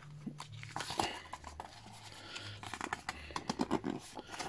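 Small plastic toy parts and their packaging being handled on a table: light clicks, taps and rustling, coming thicker and quicker in the last second and a half.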